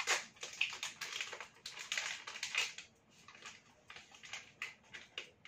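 Non-transparent plastic film wrapper being peeled off a disposable vape: dense crinkling crackle for about three seconds, then fainter scattered crackles and clicks.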